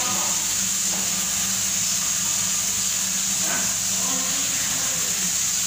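Steady hissing noise with a low hum underneath, unchanging throughout.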